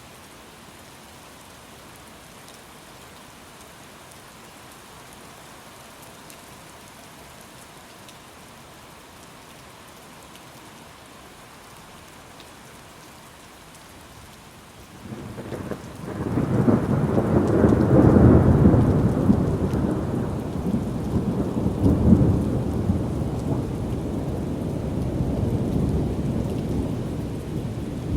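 Steady rain falling, then about halfway through a long peal of thunder breaks in suddenly and rolls on with a second surge, slowly dying away near the end.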